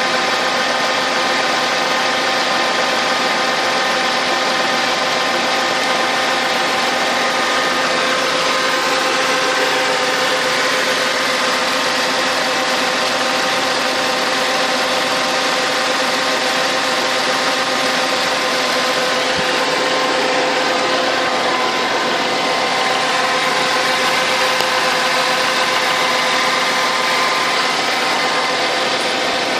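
Mercedes-Benz W211's M112 V6 engine idling steadily, with the knock (стук) the recording was made to capture. Several steady whining tones run under it.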